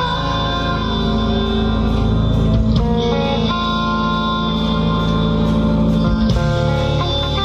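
Live rock band playing an instrumental passage without vocals: guitar carrying held notes over drums keeping a steady beat.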